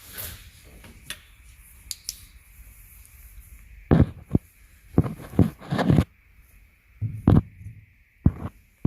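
A series of about seven irregular knocks and clunks, metal work on a truck door, over a faint steady hiss of air leaking from an air compressor hose.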